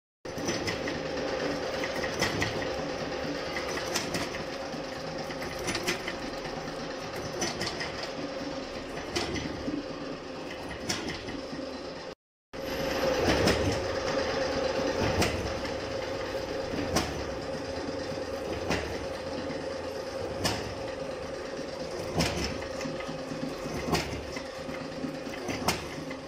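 Gear hobbing machine cutting a helical gear: the hob and table drive run with a steady hum and a sharp knock about every second and three-quarters. The sound breaks off briefly about halfway through.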